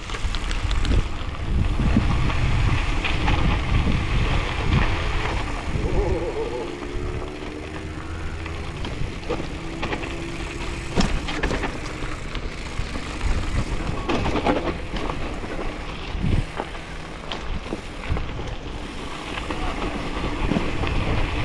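Wind buffeting the microphone while a loaded bike rolls along a trail, with tyre rumble and scattered clicks and rattles.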